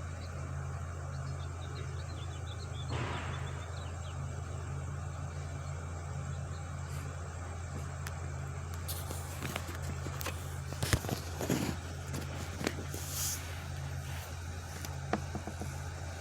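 Steady low drone of a truck engine running, with a brief swish about three seconds in and a string of sharp knocks and bangs in the second half.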